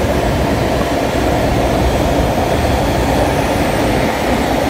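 Steady rushing airflow noise inside a sailplane's cockpit in flight.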